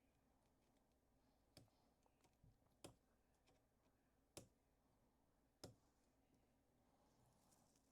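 Faint, sparse metallic clicks of small tools working the pins of a disassembled Goal D9 lock: four sharp ticks roughly a second and a half apart.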